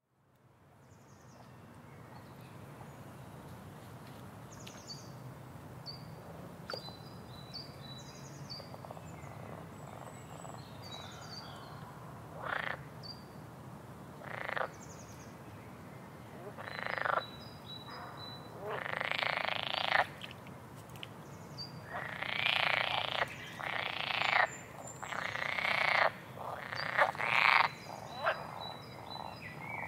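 Frogs croaking, with small birds chirping faintly and high. It fades in at the start, and from about twelve seconds in loud croaks come in, growing more frequent and longer toward the end.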